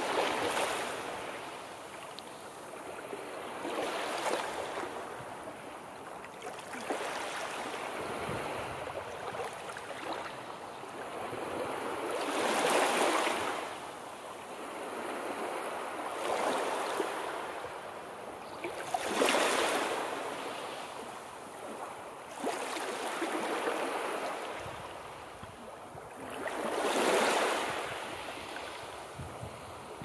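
Sea surf: waves breaking one after another, each a rush of noise that swells and fades every three to four seconds, some louder than others.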